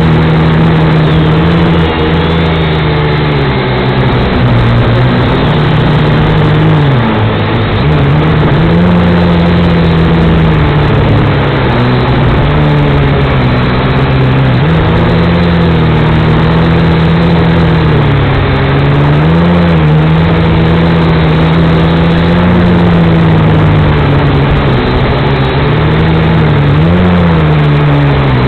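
Small toy quadcopter's electric motors and propellers whining continuously, the pitch rising and dipping as the throttle changes.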